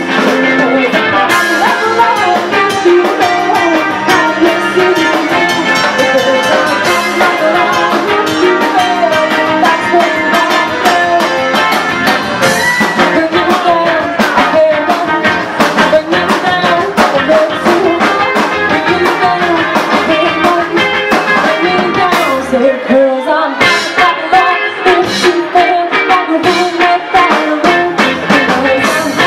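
Live rock band playing loud: a woman singing lead over electric guitar, bass and drum kit, with a steady beat. The drums and bass drop away briefly about three-quarters of the way through, then come back in.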